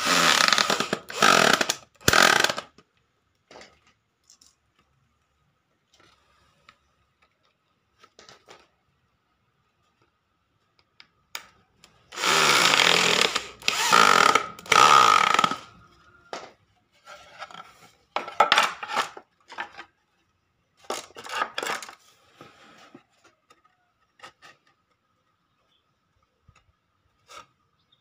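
Corded electric drill boring into the edge of a wooden board, run in short bursts. There are three quick bursts at the start, a longer run of about four seconds near the middle, and a few short bursts after it.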